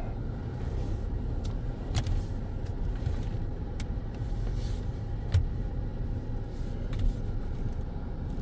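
Steady low in-cabin rumble of a 2014 Hyundai Sonata with the 2.4-litre engine, moving slowly. A few light clicks are scattered through it.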